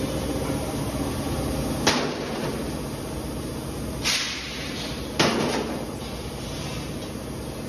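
Steel gas cylinders clanking as they are handled and set down: three sharp metallic knocks, about 2, 4 and 5 seconds in, the last two ringing on briefly, over a steady hum of factory machinery.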